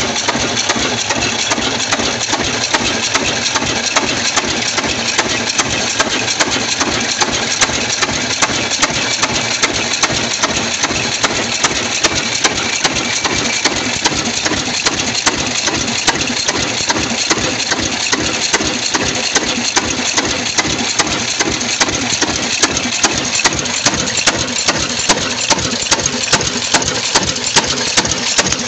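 Ruston Hornsby-type stationary diesel engine running steadily at slow speed. It beats regularly, about twice a second, over a dense mechanical clatter.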